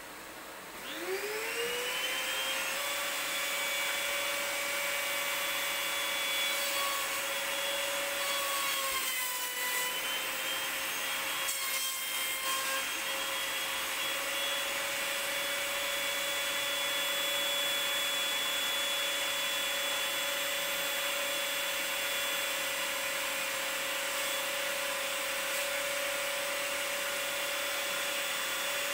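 Table saw switched on, its motor whine rising to speed over about two seconds, then running steadily. The pitch sags briefly around ten and twelve seconds in.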